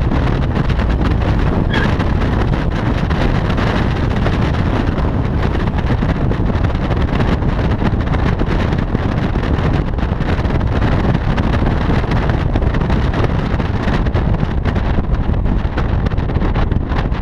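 Steady, loud rush of wind buffeting a microphone on the roof of a fast-moving car, a deep rumble with no breaks.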